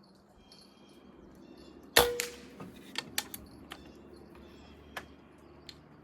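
A moderated Benjamin Armada PCP air rifle fires one shot about two seconds in: a sharp crack with a brief ringing tone. Several lighter clicks follow.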